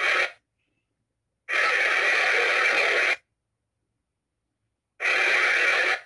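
Three bursts of hissing radio-like static, each cutting in and out abruptly with dead silence between: a short one at the start, a longer one of nearly two seconds beginning about a second and a half in, and a third near the end.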